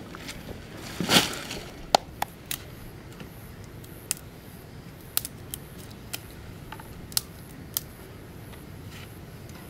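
A series of scattered sharp snaps and clicks, roughly one a second, with one louder crunch about a second in.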